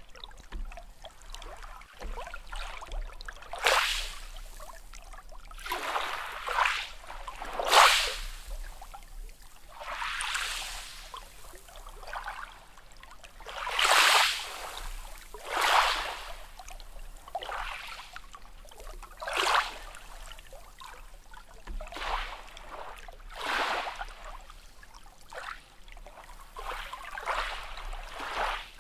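Small sea waves splashing and washing in, a rush of water noise that swells and falls away about every one to two seconds.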